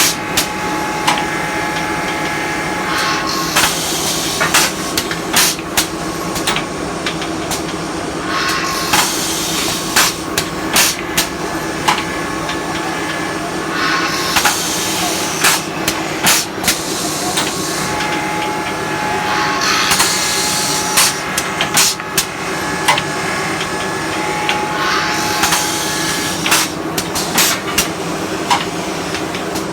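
Automatic wood drilling machine running through its cycles: a steady motor hum, with a grinding, hissing burst of drilling into wood that swells for a few seconds about every five to six seconds. Many sharp clacks and knocks from the machine's moving parts come in between.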